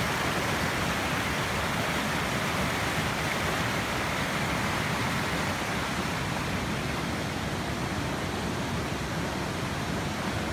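Small waterfall: a steady rush of falling and splashing water, fading slightly toward the end.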